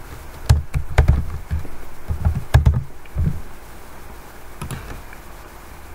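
Typing on a computer keyboard: a handful of irregular keystrokes over the first three seconds or so, then a couple more near the end.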